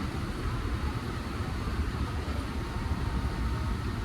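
Steady low rumble and hiss of a moving boat ride through the greenhouses, with no distinct events.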